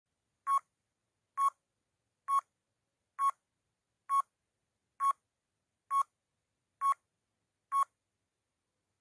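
Countdown timer beeping: nine short electronic beeps at about one a second, each marking one number as the timer counts down from nine to one.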